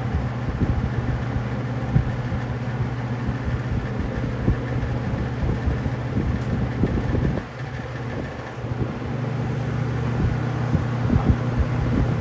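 Robeson box fan running with a steady hum and a light rattle. About seven seconds in the sound dips briefly as the speed is switched, then comes back stronger.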